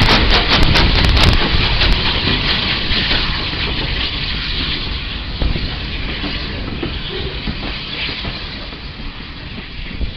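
Steam train passing close by: the locomotive goes by with a rapid beat in the first second or so, then the passenger coaches roll past in a steady rumble that slowly fades.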